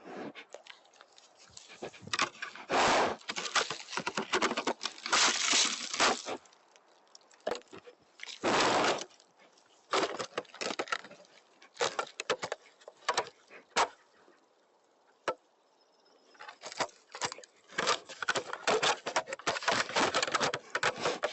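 Black bear handling and chewing on a trail camera, heard through the camera's own microphone: irregular bursts of scraping and clattering with sharp clicks and knocks, and a quieter stretch about two-thirds of the way through.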